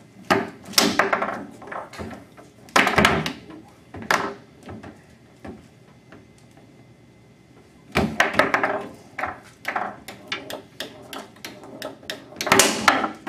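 Foosball table in play: quick clusters of hard clacks and knocks as the ball is struck by the plastic players and hits the table, with a lull of about three seconds in the middle before rapid play resumes.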